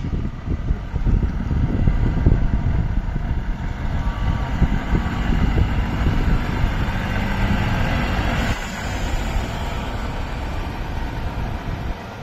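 Diesel engine of a Volvo FH articulated lorry pulling a flatbed trailer round a roundabout and passing close by, a loud steady low rumble that eases a little after about eight seconds as the trailer rolls past.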